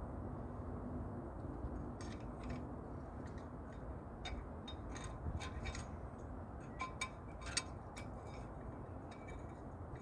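Light metallic clicks and clinks, scattered and irregular, from tools and brake parts being handled at a brake caliper, over a steady low background rumble.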